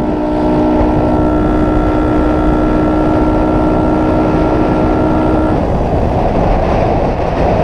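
Honda Wave 110i motorcycle with an open, filterless intake riding through heavy rain, its engine under a dense, steady rush of wind and rain noise. A steady, level tone sounds over it and stops abruptly about five and a half seconds in.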